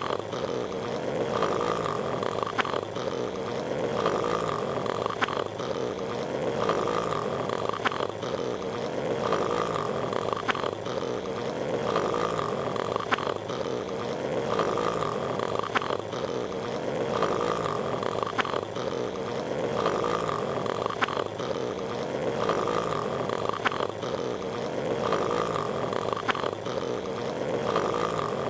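Patrick Star's cartoon snoring, looped without a break: a snore cycle with a short sharp stroke repeating evenly a little more than once a second.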